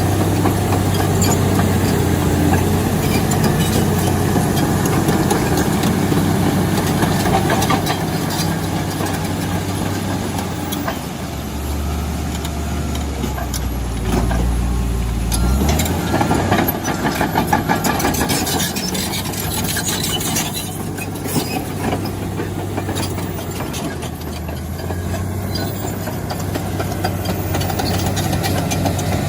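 Heavy bulldozer's diesel engine running steadily with a low hum. About halfway it drops lower for a few seconds, followed by a stretch of rapid clanking.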